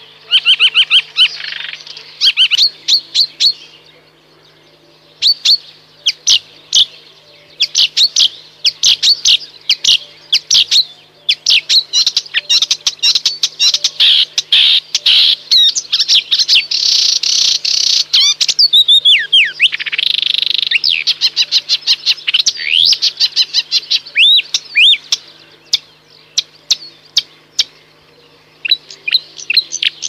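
Marsh warbler singing: a fast, varied chattering song of rapid clicks, trills and sweeping whistled notes, in bursts broken by short pauses.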